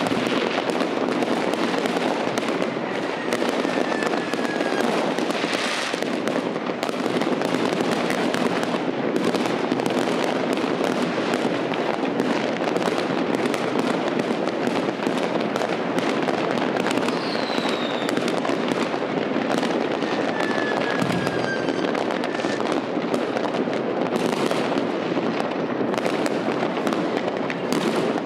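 Fireworks going off in a dense, continuous barrage of bangs and crackling from many shells at once. A few whistles glide down in pitch along the way.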